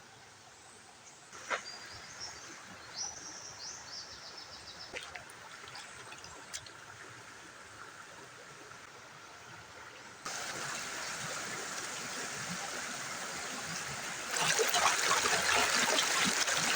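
River water flowing and trickling, with a few sharp clicks and faint high chirps in the first half. The water noise steps up suddenly about ten seconds in and again near fourteen seconds, growing louder each time.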